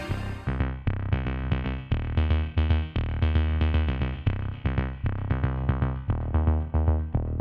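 Background music: electronic track with a steady drum-machine beat, short repeated synthesizer notes and a bass line.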